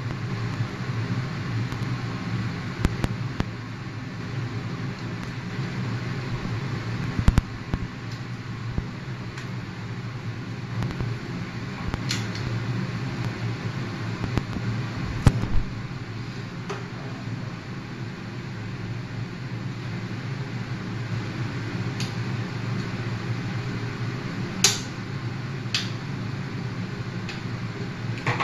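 Steady fan whir with a low hum, with several sharp small clicks and taps scattered through as metal tweezers and parts are handled on an opened 2.5-inch hard drive.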